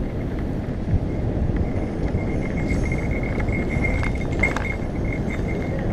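Mountain bike rolling fast down a dry dirt trail: steady tyre rumble and crunch on the dirt, with the bike rattling over bumps and wind buffeting the helmet-mounted camera. A faint steady high whine sits under the rumble.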